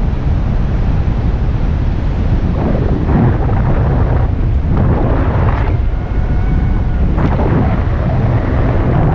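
Wind buffeting the microphone: a heavy, low rush that surges in gusts every couple of seconds.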